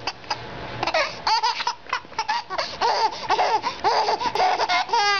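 Baby laughing in quick repeated bursts, set off by a dog nuzzling at its face.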